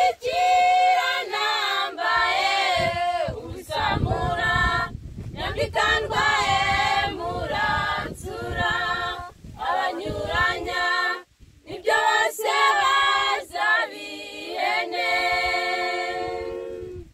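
Choir of young women singing a Kinyarwanda Christian hymn a cappella, in phrases with a brief break a little past the middle, ending on a long held chord.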